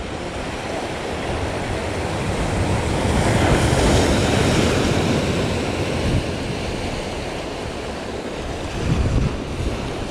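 Sea waves surging and washing, with wind buffeting the microphone. The wash swells to its loudest about four seconds in, then eases off.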